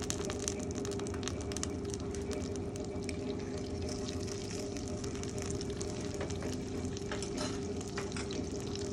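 Butter melting and sizzling in a hot nonstick pan, with many small scattered pops and crackles over a steady low hum.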